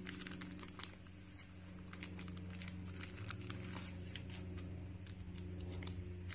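Soft, fluffy slime being squeezed, stretched and pulled apart by hand, giving a run of small sticky crackles and pops over a steady low hum.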